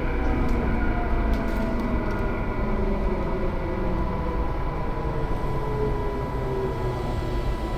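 Tobu 9000 series electric train running, heard on board: rumble from the wheels and rails, with the motor whine falling slowly in pitch as the train slows, and a steady high tone beneath it.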